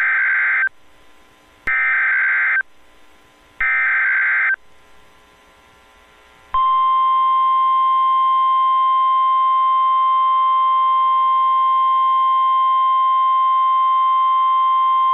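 Emergency Alert System activation on NOAA Weather Radio, signalling a tornado warning. Three short bursts of SAME header data, evenly spaced about a second apart, are followed about six and a half seconds in by the steady 1050 Hz warning alarm tone.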